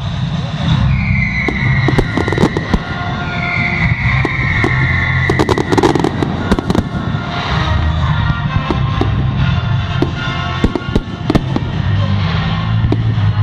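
Fireworks going off: many sharp bangs and crackles, with two whistling fireworks in the first half, each a whistle of a second or two sliding slightly down in pitch. Music with a steady low bass plays underneath.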